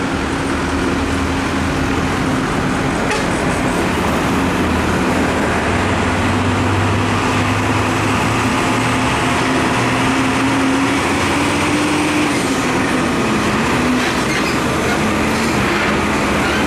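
Diesel engine of a UD Trucks PK 215 cargo truck running steadily as the truck drives slowly toward and past. The engine note rises slightly about twelve seconds in, then drops back.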